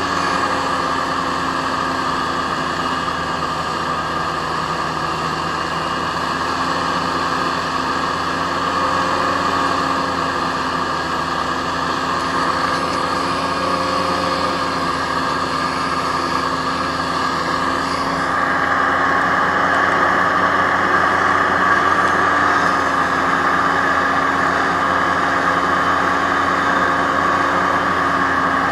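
Aerocruiser SA-1100 hovercraft running steadily under way, its engine and fan giving a continuous drone with a few held tones over a rushing noise. It grows slightly louder and brighter from about eighteen seconds in.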